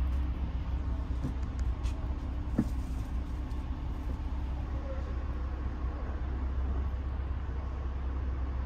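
Steady low engine and road rumble inside a highway coach under way, with a few faint clicks.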